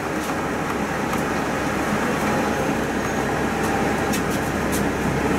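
City bus underway, heard from inside: steady engine and road rumble, with a few light rattles or clicks in the second half.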